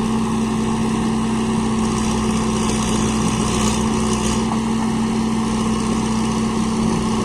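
Diesel engine of heavy machinery, a backhoe loader or farm tractor, running steadily at constant speed with an even hum.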